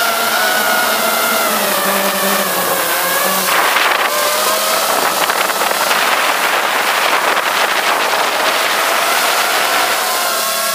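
FPV racing quadcopter's electric motors and propellers whining steadily, with the pitch drifting up and down with the throttle. The whine turns into a louder, rushing sound for a few seconds in the middle.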